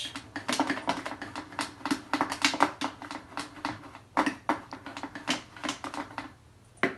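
Toothbrush scrubbing a humidifier's ultrasonic transducer in quick, scratchy strokes, with a short break about four seconds in. This is the step that brushes off limescale loosened by a vinegar soak.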